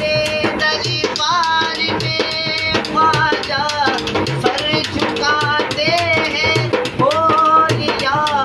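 A man's solo voice singing a qawwali in long, sliding, ornamented phrases. He accompanies himself on a steel-shelled hand drum struck with the palm, giving a steady beat of deep strokes and sharp slaps.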